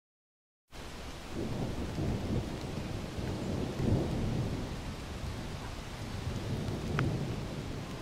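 A low rumbling roar of rushing noise that starts abruptly about a second in and swells and eases a few times, with one short click near the end.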